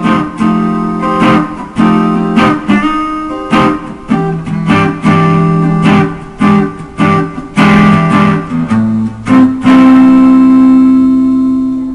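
Intro music: a guitar strumming chords in a steady rhythm, ending on one long held chord that fades out.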